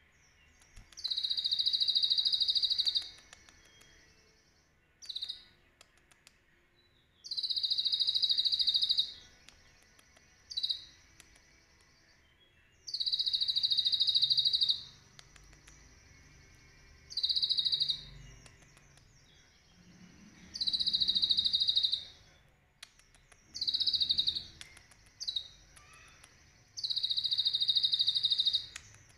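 Caged kolibri ninja (a sunbird) singing loud, high-pitched phrases. Most last about two seconds and come every few seconds, with short single notes in between. Its song is filled with the cililin's call, learned by tutoring.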